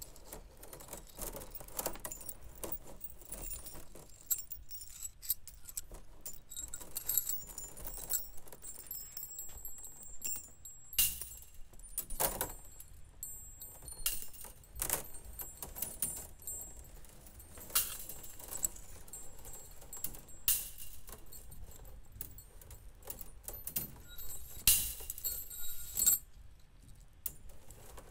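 Wire-sculpture sphere of thin metal wires rattling and jangling irregularly as a dancer moves inside it, metal clicking and scraping on metal, with louder clinks now and then.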